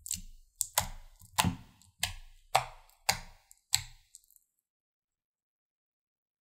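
Fingertips poking repeatedly into soft slime, seven short, sharp wet sounds at about one every 0.6 seconds, stopping about four seconds in.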